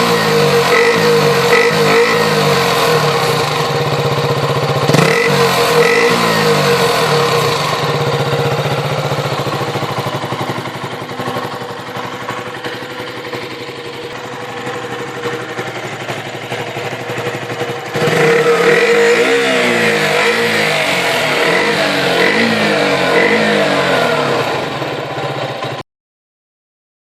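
Small single-cylinder motorcycle engine revved through its exhaust in quick blips, each rising and falling back, with steadier running in between. The sound cuts off suddenly near the end.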